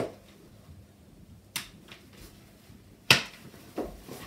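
Plastic connector clips on a Bugaboo Lynx bassinet's fabric snapping into the trough along the top of its frame: sharp clicks about a second and a half apart, the one about three seconds in the loudest, then a softer one.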